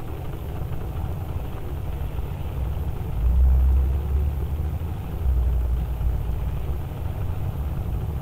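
Low machinery rumble, like an engine running, that swells louder twice around the middle, each time for about a second.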